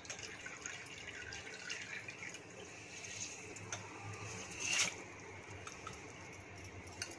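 Soaked finger millet (nachani) and its soaking water poured from a glass bowl onto a cotton cloth in a strainer: faint wet trickling and dripping, with one brief louder pour about five seconds in.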